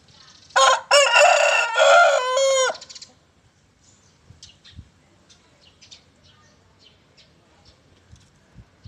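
Rooster crowing once: a loud cock-a-doodle-doo of about two seconds that starts about half a second in and falls away at the end. Faint scattered ticks follow.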